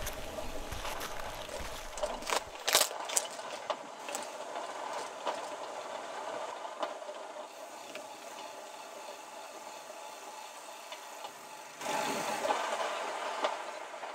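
A steady mechanical drone made of several steady tones, with sharp clicks and rattles a couple of seconds in and a louder rush of noise near the end.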